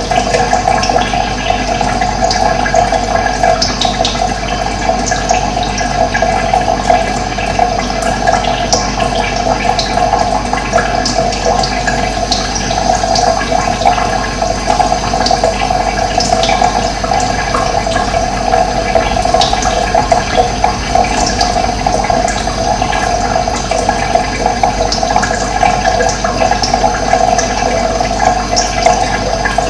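Steady running water, a continuous loud rushing, with brief bird chirps scattered over it.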